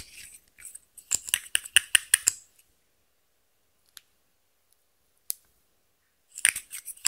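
Plastic liquid eyeshadow tube and its applicator wand being handled: a quick run of about ten sharp clicks from about a second in, a couple of lone ticks, then another short cluster of clicks near the end.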